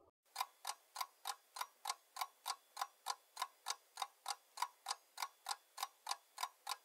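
Ticking-clock sound effect, an even tick about three times a second, timing the pause while the viewer looks for the hidden animal.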